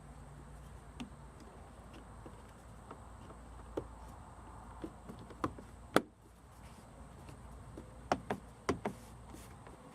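Plastic mirror cover trim piece on a 2005 Nissan Altima door being pressed into place: scattered clicks and taps, with a sharp snap about six seconds in as its plastic clip seats, and a few more clicks near the end.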